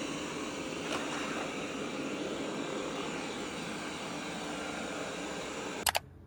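A motor driving a steady rush of air, like a vacuum running, with a light click about a second in and a sharp double click just before it cuts off.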